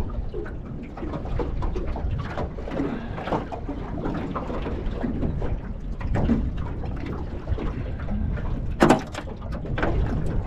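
Wind buffeting the microphone and choppy water slapping against the hull of a small aluminium boat, with irregular splashes throughout and one sharp knock about nine seconds in.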